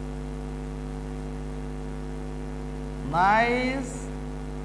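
Steady electrical mains hum with several overtones, running evenly under the recording. A single short spoken word cuts in about three seconds in.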